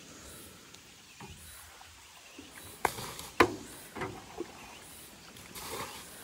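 A few sharp knocks and clunks over faint background noise, the loudest about three and a half seconds in, with a short rustle near the end.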